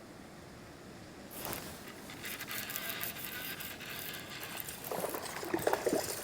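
Water splashing and rustling that grows louder from about a second and a half in, as a hooked speckled trout thrashes at the surface, with heavier splashes near the end.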